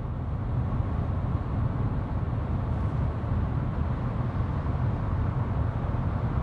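Cabin noise inside a 2021 Kia Sorento 2.2 CRDi diesel SUV cruising at 130 km/h on winter tyres: a steady low rumble of tyre, road and wind noise, measured at about 65 to 71 dB.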